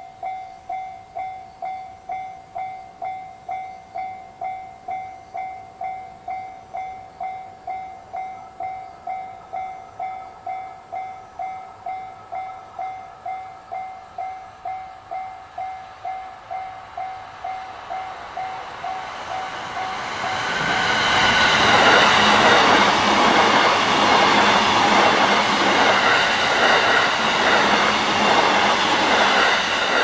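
Japanese level-crossing warning bell ringing with a steady electronic ding, about three strikes every two seconds. About twenty seconds in, a JR East E657 series electric multiple unit comes up and passes across the crossing, much louder than the bell and drowning it out.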